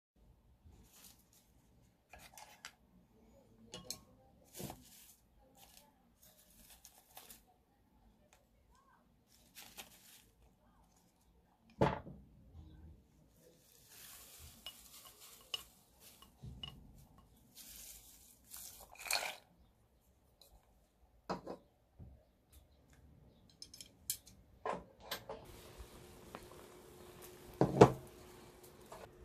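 Broth ingredients being added to a stainless steel pot: scattered clinks and knocks of a glass bowl and wooden chopsticks against the pot, with short rustles as dried bonito flakes are tipped in. Near the end the pot of broth is boiling on a portable gas burner with a steady hiss, and a sharp knock of the chopsticks on the pot is the loudest sound.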